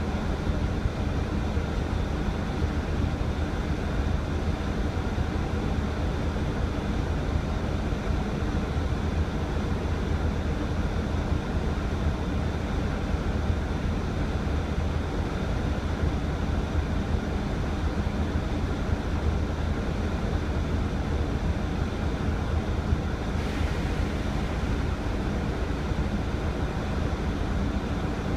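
Mercedes-Benz OC500LE bus's OM457hLA 12-litre straight-six diesel idling steadily with the bus standing still, heard from inside the passenger cabin as a low, even drone.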